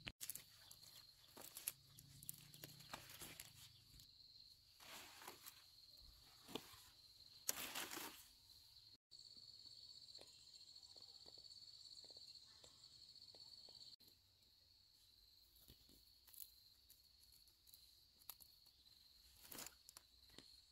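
Leafy vegetable stems and leaves rustling and snapping in irregular bursts as they are picked and bundled by hand, over a steady high insect trill.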